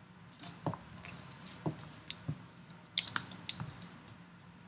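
Scattered light clicks and taps, about a dozen spread irregularly over a few seconds, with faint rustling between them: small objects being handled at close range.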